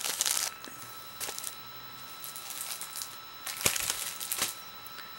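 Clear plastic wrapping on packs of paper doilies crinkling in a few short bursts as the packs are handled.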